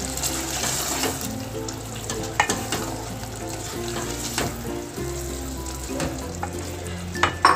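A spatula stirring and scraping soaked whole brown lentils into minced meat frying in oil in an aluminium pot, with a steady sizzle and several sharp scrapes and knocks against the pot, most of them close together near the end. Soft background music plays underneath.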